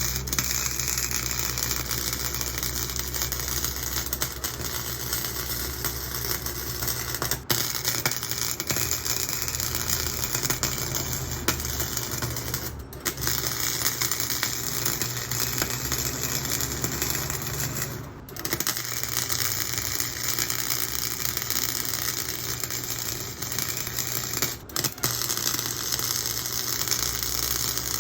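Chicago Electric flux-core wire-feed welder arc, crackling and sputtering steadily as a bead is run on exhaust tubing, with a few brief breaks where the arc stops and is struck again.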